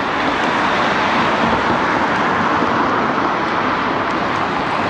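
Steady rushing noise of riding an electric rental scooter along a city street: wind and road noise with no distinct engine note.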